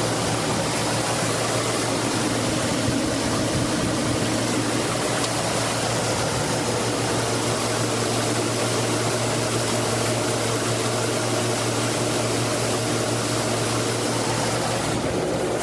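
Chevrolet Suburban idling with the air conditioning on and the compressor engaged: a steady rush of air from the blower and fans over a constant low engine hum.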